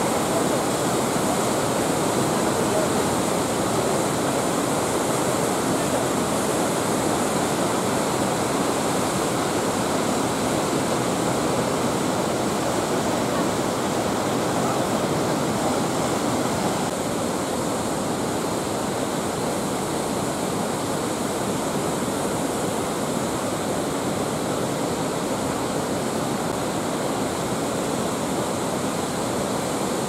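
Mountain waterfall's water rushing and splashing over boulders, a loud, steady wash of noise that eases slightly about seventeen seconds in.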